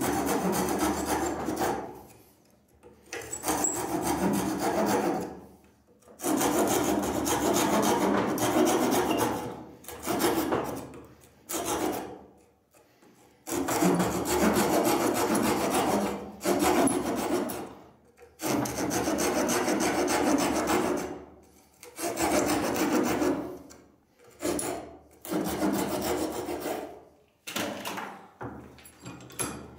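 Hand saw cutting slots into a softwood block held in a vise: repeated back-and-forth rasping strokes in runs of a few seconds, with short pauses between runs.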